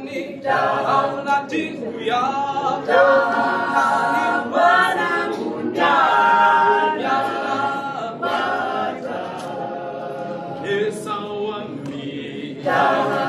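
A small group of men and women singing together unaccompanied, in phrases with short breaths between them.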